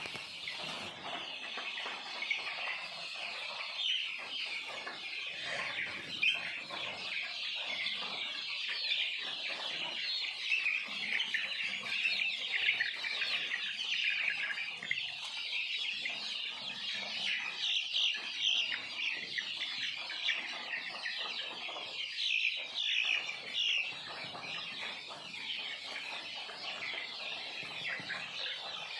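A flock of Kadaknath (black) chickens calling all at once: a dense, continuous chatter of high cheeps and clucks that never pauses.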